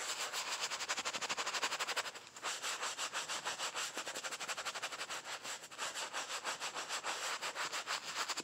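A bristle brush scrubbing an Air Jordan 7 Retro insole in rapid back-and-forth strokes, with a brief pause about two seconds in.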